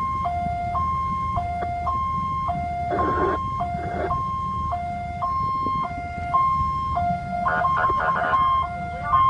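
Ambulance two-tone hi-lo siren, switching evenly between a higher and a lower note about every half second, over steady engine and road rumble. Short bursts of noise come twice, about three and eight seconds in.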